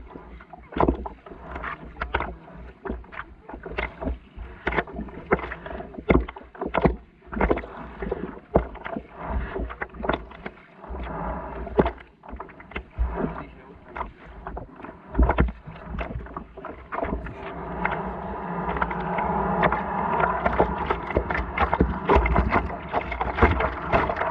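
Small waves lapping and slapping against a stand-up paddleboard at water level, with many irregular sharp slaps and knocks over a low wash. The water noise grows steadier and louder over the last several seconds.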